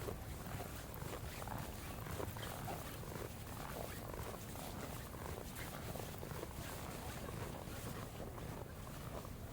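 Wind rumbling steadily on the microphone in a snowstorm, with faint irregular crunches of footsteps in snow.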